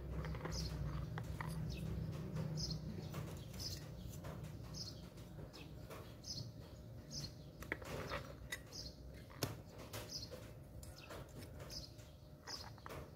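Faint clicks and taps of metal parts as a power saw's motor armature is fitted into its gear housing by hand. Over this, a bird chirps in short high notes about once a second.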